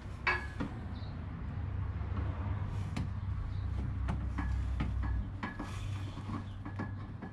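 Scattered light clicks and knocks of a screwdriver working on the Land Cruiser's plastic front grille and its screws and clips, over a low rumble that stops about five seconds in.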